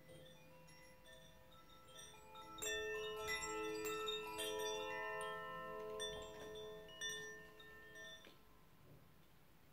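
Chime-like ringing tones: several notes at different pitches struck one after another and left to ring together, building about two and a half seconds in and fading out by about eight seconds, with a few faint notes before.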